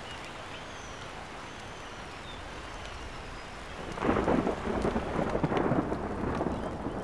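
Rain falling steadily, then from about four seconds in a louder, rougher surge of noise with more low rumble.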